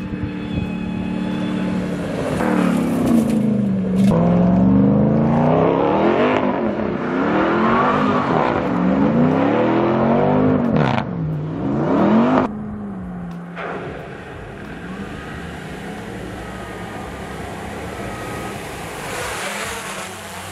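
Supercharged 6.2-litre V8 of a Ram 1500 TRX revving hard again and again, its pitch swinging up and down, as with wheelspin on loose dirt. About twelve seconds in it drops abruptly to a quieter, steadier running sound.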